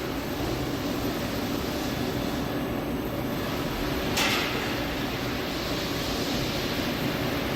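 McClean Anderson Spider CNC multi-spindle filament winder running under power: a steady mechanical drone from its turning chucks and traversing carriage, with a brief hiss about four seconds in.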